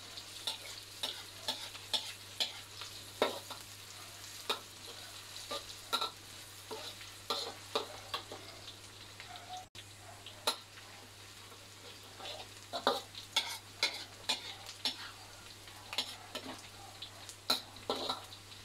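Garlic, shallots, ginger and chilli sizzling in hot oil in a wok, with a metal spatula clinking and scraping against the wok as they are stirred, irregularly, about one or two strokes a second. This is the stage of frying the aromatics until they smell fragrant.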